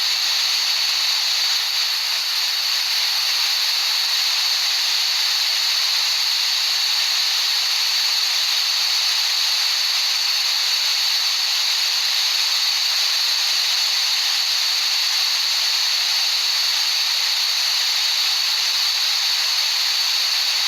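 Steady, high-pitched hiss of shaped noise played as a tinnitus relief sound, brightest in the upper treble with no bass. It cuts off abruptly at the very end.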